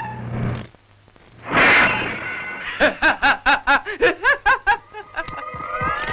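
A man's loud cackling cartoon-villain laugh, a rapid string of about ten "ha" beats over two seconds, starting a little before the middle. It is preceded by a short, loud rush of noise.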